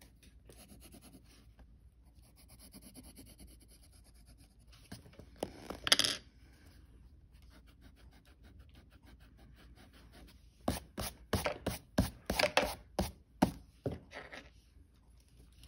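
Graphite pencil scratching on sketchbook paper in faint, quick strokes. A little before halfway there is one louder scratchy stroke, and near the end a fast run of about a dozen sharp strokes, several a second.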